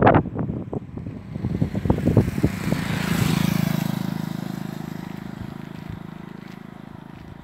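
A motorcycle passes close by and rides away. Its engine is loudest a little over three seconds in and then fades steadily. In the first two seconds, gusts of wind buffet the microphone.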